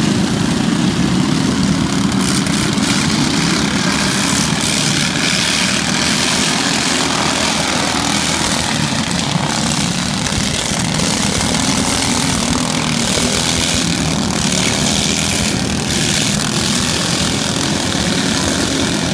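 Several riding lawn mower engines running at once, a steady, unbroken engine noise.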